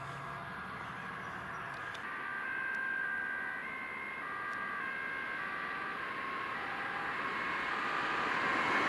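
Several distant emergency-vehicle two-tone sirens, their steady notes stepping between pitches and overlapping, over road traffic noise that grows louder toward the end.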